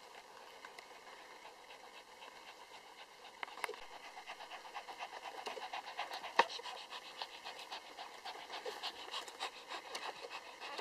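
Lhasa Apso mother dog licking her three-day-old puppy: a quick run of soft, wet clicks and smacks that picks up about three seconds in, with one sharper click near the middle.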